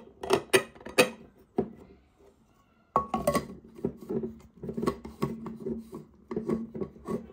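Stainless steel Stanley vacuum bottle and its cup-lid handled on a table: clinks, knocks and rubbing of metal and plastic. There is a short pause about two seconds in, and one brief metallic ring.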